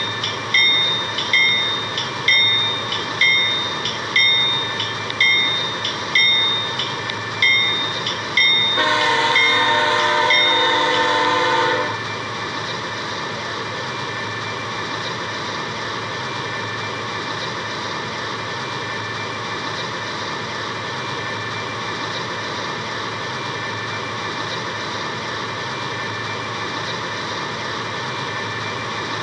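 A railroad bell clangs about once a second. About nine seconds in, a train horn sounds for roughly three seconds. After that comes a steady, even rushing noise.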